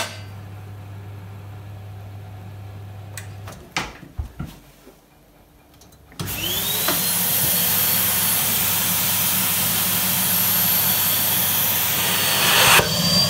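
Vacuum cleaner switched on about six seconds in, its motor spinning up with a rising whine and then running steadily as it sucks through a homemade vacuum-forming bed. It gets a little louder near the end as the softened plastic sheet is drawn down over the mould. Before it starts there are a low steady hum and a few clicks of handling.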